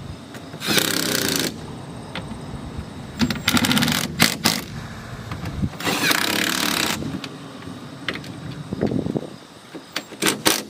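Impact wrench hammering the mirror's mounting nuts tight in three short runs, with a few sharp clicks near the end.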